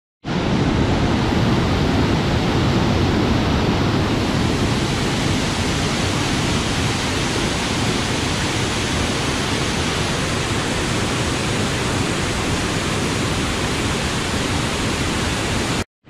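Steady, loud rush of a rain-swollen waterfall, white water churning down low cascades and around boulders. It cuts off suddenly near the end.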